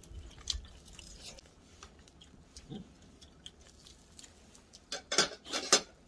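Light clicks and clinks of metal tongs against a wire grill rack over a charcoal fire. Near the end come three short, loud hissing bursts.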